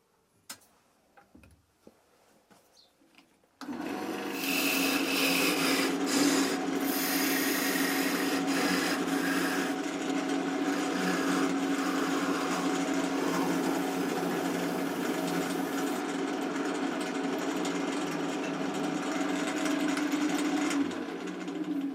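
A power tool switches on about four seconds in and runs steadily, with a constant hum and a rasping, grinding contact noise, then winds down near the end.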